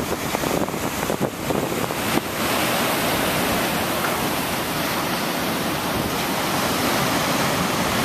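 Ocean surf breaking and washing over shoreline rocks: a continuous roar of crashing, foaming water that becomes fuller and steadier about two seconds in.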